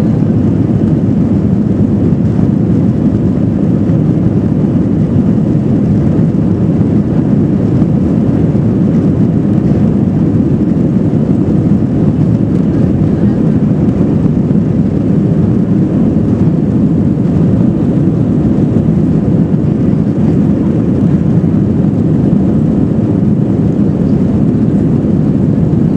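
Airbus A321 passenger cabin noise during takeoff: the jet engines and rushing air make a steady, loud, low rumble that does not change.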